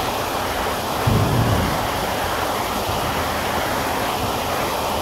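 Steady heavy rain hiss, with a brief low thump about a second in.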